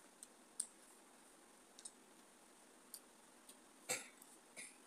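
Faint close-up eating sounds: a scattered series of short, sharp, wet mouth clicks from chewing and mouthing food, with a louder knock and short rustle about four seconds in as the hand works rice on the plate.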